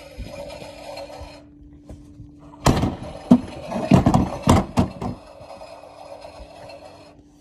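Toy washing machine running with a steady low motor hum. From about three seconds in, loud knocking and rattling for two seconds: rocks in the drum banging around, an off-balance load.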